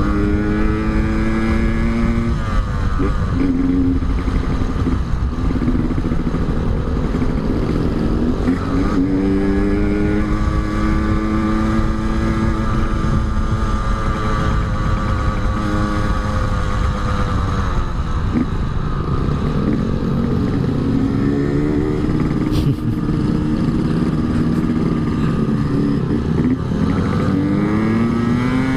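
Yamaha RX-King two-stroke single-cylinder motorcycle engine with an Altec C20 aftermarket exhaust, heard while riding. The engine note climbs as it accelerates, drops sharply at gear changes a few times, and holds steady for a while in the middle, over a rush of wind and road noise.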